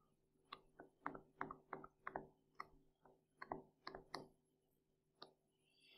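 Stylus tip ticking on a tablet screen during handwriting: about a dozen light, irregular ticks, the last one alone near the end, over a faint steady hum.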